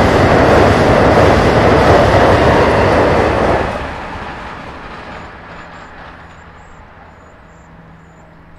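Amtrak electric passenger train passing close with a loud rushing rumble of wheels on rail. The noise drops away sharply a little over three seconds in, then fades steadily as the train recedes.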